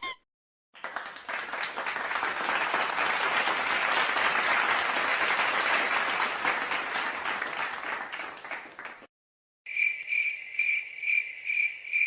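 A crowd clapping in steady applause for about eight seconds, thinning out near the end. After a brief silence, crickets start chirping in a steady, high-pitched pulse, a few chirps a second.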